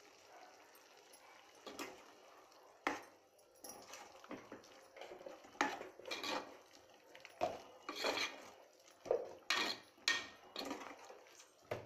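Metal ladle scraping and knocking against the side of an aluminium pot while stirring a thick, wet curry, in a run of irregular strokes that starts about three seconds in.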